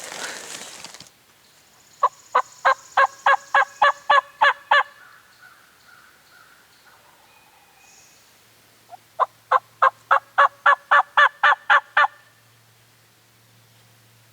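Turkey call run as a series of loud hen yelps, two runs of about ten evenly spaced notes, a few seconds apart, used to call a gobbling tom in. Brief rustling in the first second.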